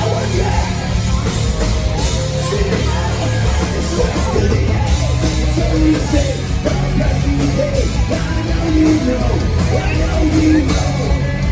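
Rock band playing live: distorted guitars, bass and drum kit, with a singer's voice over them.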